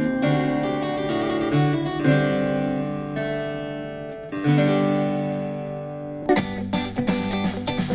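A small portable Bluetooth speaker playing a classical piece with harpsichord-like keyboard notes. A little past six seconds in it switches suddenly to a pop track with strummed guitar.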